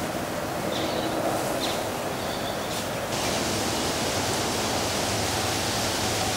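Steady hum of a mass of agitated honeybees flying around an opened hive, heard as an even, unpitched noise.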